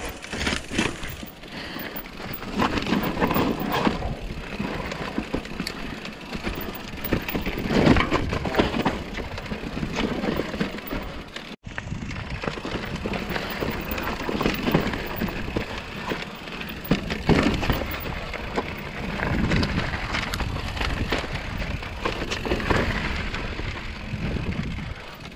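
Mountain bike descending a rocky dirt trail: tyres crunching over dirt, gravel and rock, with frequent knocks and rattles from the bike over the bumps.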